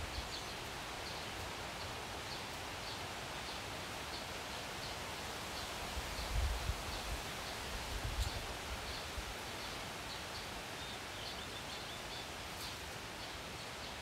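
Outdoor ambience: a steady hiss with faint high chirps repeating about twice a second. Wind gusts buffet the microphone around the middle.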